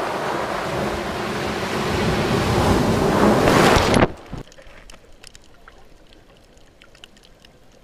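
Surf breaking on a pebble beach, swelling louder toward a crash. It stops abruptly about four seconds in, giving way to a quiet underwater hush with faint scattered clicks.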